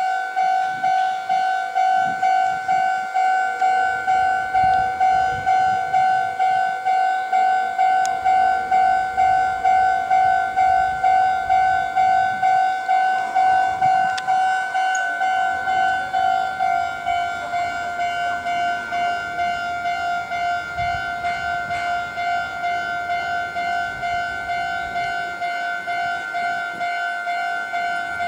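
Japanese railway level-crossing warning bell ringing steadily, the same electronic clang repeated a bit over twice a second. It is the alarm that warns of an approaching train.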